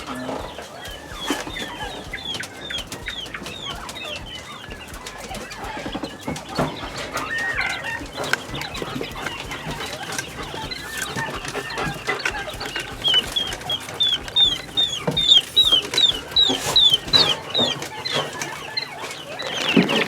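Young quail chicks peeping: runs of short, high, falling chirps a few times a second, one run near the start and a longer, louder run in the second half, with scattered light knocks.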